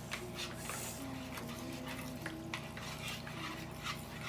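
Spoons stirring glue and water in plastic mixing bowls to make slime, with scattered light scrapes and clicks.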